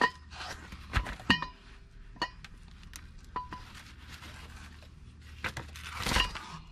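Sharp metallic clinks, several ringing briefly, as a steel brake rotor and Dana 60 front hub assembly is lifted and turned over, the rotor knocking against the hub because its newly driven-in wheel studs are not yet fully seated. Soft paper rustling comes in between.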